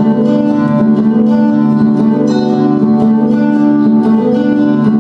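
Song accompaniment between vocal lines: strummed acoustic guitar carrying steady chords.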